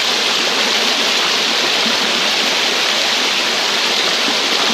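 Shallow river water rushing steadily over stones and churning around a wader's legs: a loud, even hiss that never lets up.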